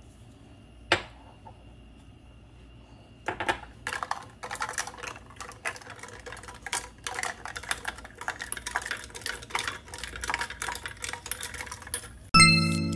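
A metal straw clinks rapidly and unevenly against a glass jar and the ice cubes inside as iced coffee is stirred. A single sharp knock comes about a second in, and music begins loudly just before the end.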